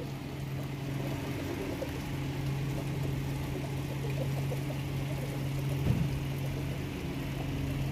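Steady low machine hum, with a brief louder thump about six seconds in.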